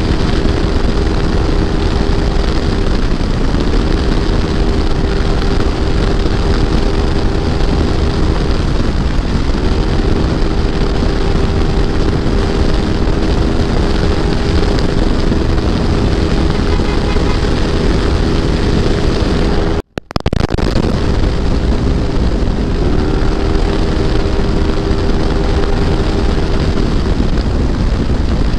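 Yamaha NMAX scooter's bored-out 195cc engine running at riding speed, with heavy wind rushing over the microphone. The engine note holds steady, easing off and climbing back up a few times. The sound drops out for under a second about two-thirds of the way through.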